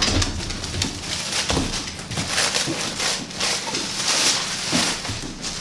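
Cardboard and foam packing rustling and scraping as parts are lifted out of a box, with irregular knocks and crinkles.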